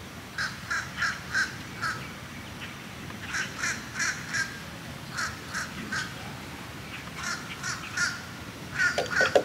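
A bird calling in quick runs of short calls, three to five at a time with brief pauses between runs.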